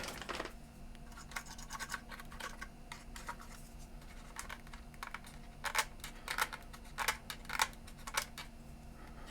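Faint scratching and small plastic clicks from work on an opened Sanyo CDP-190 portable CD player as its switches and circuit board are cleaned, with five louder clicks in the second half, a little over half a second apart.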